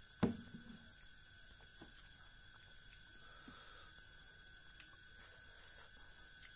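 A single sharp knock about a quarter second in, then faint eating sounds: fingers squishing curry-soaked rice and fish, small mouth clicks and chewing.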